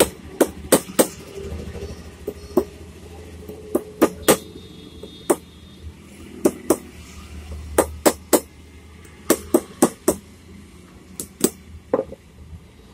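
Ball-peen hammer tapping on a demolition hammer's armature as it is fitted: about two dozen sharp metal knocks in uneven bunches of two or three, over a low steady hum.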